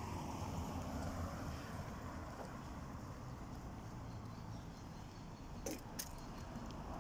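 Steady low rumble of outdoor city ambience, distant traffic. Two quick clicks come close together near the end.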